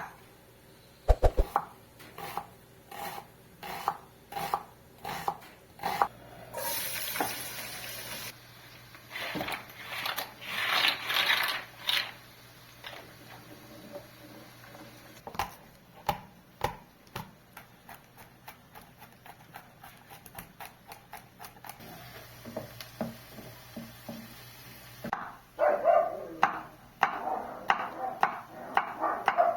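Knife chopping food on a cutting board, about two strokes a second at first, later a long run of quicker, lighter strokes, with a few longer scrapes among them.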